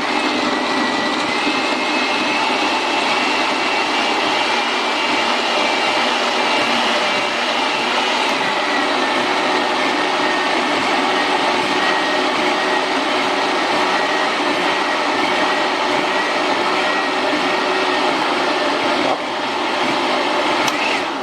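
Electric countertop blender running at a steady whine while it blends oats, nuts and liquid into a drink, then switching off at the end. Its pitch drops slightly about eight seconds in.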